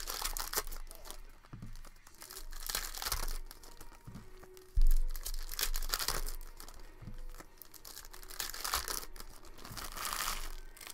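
Foil wrapper of a Panini Prizm basketball card pack being torn open and crinkled by hand, in several rustling bursts. A sudden low thump about five seconds in is the loudest sound.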